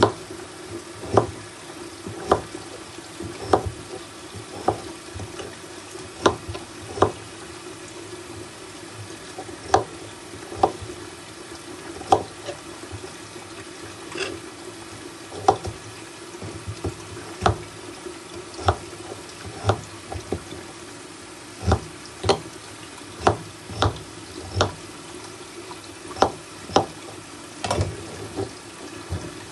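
Kitchen knife chopping peeled potatoes, a sharp knock each time the blade strikes the board, irregular and roughly once a second, over a steady background hum.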